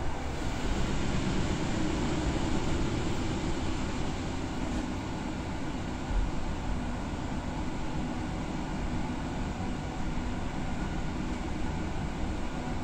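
Steady running noise of a moving passenger train, heard from inside the carriage.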